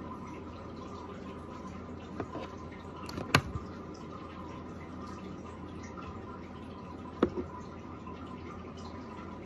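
A few short sharp snaps and clicks as an African bullfrog is fed from orange plastic tongs. The loudest comes just over three seconds in, as the frog snaps the food from the tongs, and another follows about seven seconds in. Steady background noise runs underneath.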